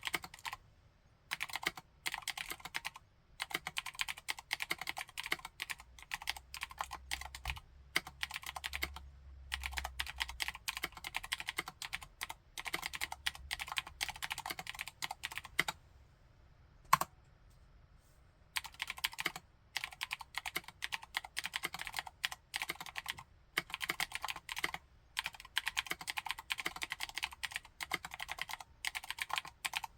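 Typing on a Vortex M0110 60% mechanical keyboard with clicky Cherry MX White switches and thick PBT keycaps: fast runs of sharp clicking keystrokes in bursts with short pauses. About halfway through, a pause of about two seconds is broken by one single louder keystroke.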